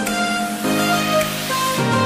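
Background music: a bright electronic dance track of held chords that change every half second or so, with a falling bass sweep near the end.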